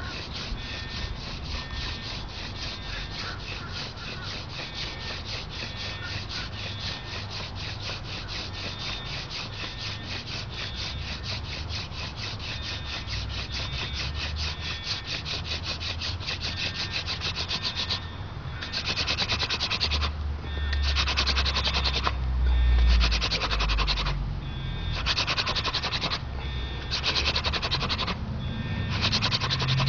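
Hand-drill friction fire: a dog fennel spindle twirled fast between the palms, its tip grinding in a dog fennel hearth board with a steady, rapid rasping rub. About two-thirds of the way in, the rubbing breaks into separate bursts of about a second each, with short pauses between runs down the spindle.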